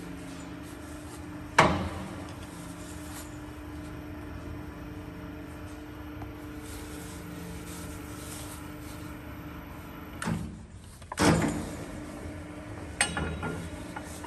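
Zopf ZB 70/2 M section bending rolls running with a steady low hum as a steel tube is rolled into a curve. There is a loud metallic clank about a second and a half in, and a few more knocks and clatter near the end.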